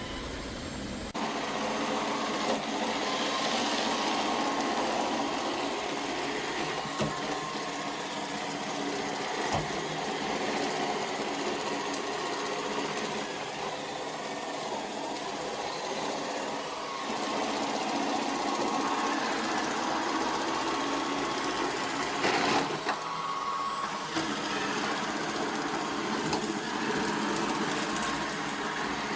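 Roomba robot vacuum running, a steady motor and brush whir that starts about a second in, with a few sharp knocks along the way.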